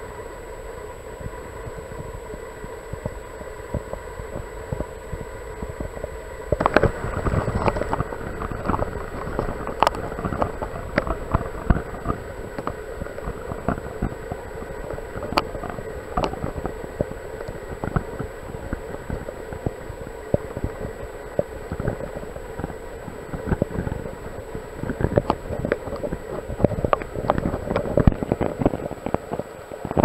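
Stream water heard from under the surface: a steady muffled rush with many irregular clicks and crackles, busier from about seven seconds in and again near the end, over a faint steady high-pitched whine.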